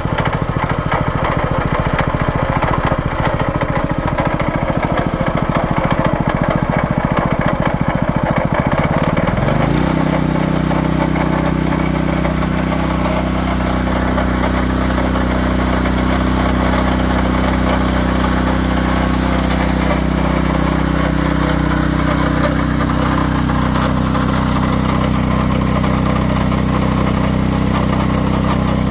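Champion 212cc single-cylinder four-stroke engine on a 22-inch rototiller running at low speed with a pulsing beat. About nine seconds in it rises in speed and holds there steadily. The owner says this brand-new engine sounds bad.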